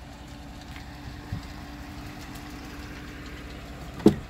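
Steady low hum like an idling engine, then a single sharp click near the end as the pickup's driver door latch is pulled open.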